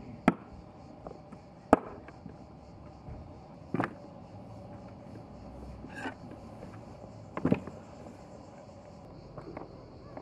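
Cleaver chopping a raw duck on a wooden cutting board: about five sharp chops spaced one to two seconds apart, with a quick double chop about three-quarters of the way through.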